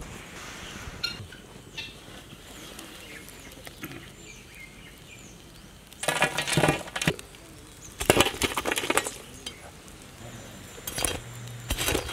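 Burning charcoal and embers clinking and scraping as they are shovelled onto the metal lid of a dough-sealed biryani pot for dum cooking, in several loud bursts of clatter in the second half. Faint bird chirps come before them.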